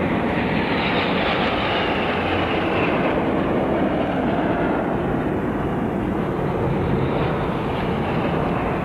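Jet military aircraft in formation, bombers, attack aircraft and fighters, flying overhead with a steady, loud roar of engines, a hiss sliding down in pitch in the first few seconds as they pass.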